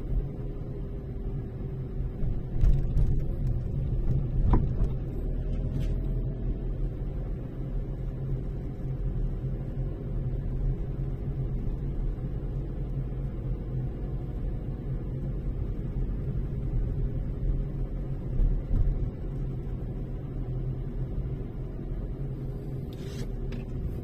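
Car being driven: steady low road and engine rumble with a faint steady hum, and a few brief thumps, near the start and again near the end.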